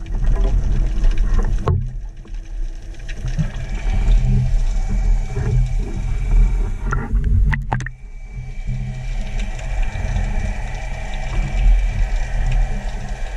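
Underwater sound picked up through a camera's waterproof housing: a loud, low rumble of water and handling noise, with a sharp knock about two seconds in and a quick cluster of clicks around seven and a half seconds.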